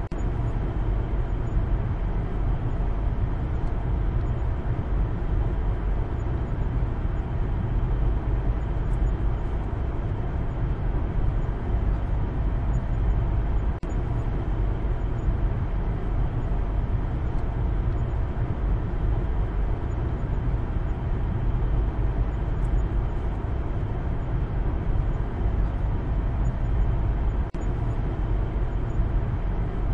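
Steady road and engine noise heard inside the cabin of a moving Maruti Suzuki Baleno, mostly a low rumble.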